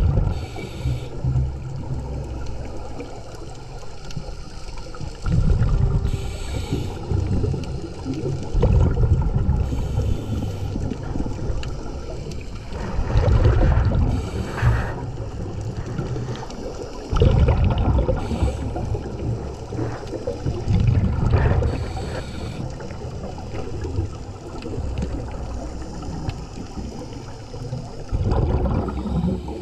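Scuba breathing heard underwater through a camera housing: exhaled bubbles rush and rumble past in loud surges every three to four seconds, with short hisses between them.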